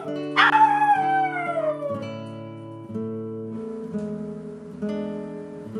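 Soft acoustic guitar background music. About half a second in, a toy poodle gives one long, loud cry that falls in pitch.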